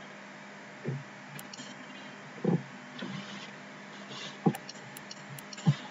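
Low steady hum with a few short knocks and clicks: about four soft thumps spread a second or more apart, with sharper ticks among them.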